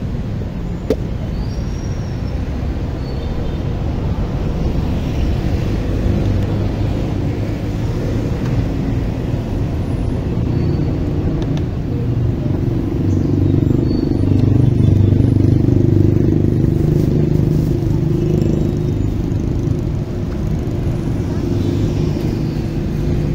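Steady road-traffic rumble from a busy city street, swelling for a few seconds past the middle, with one sharp knock about a second in.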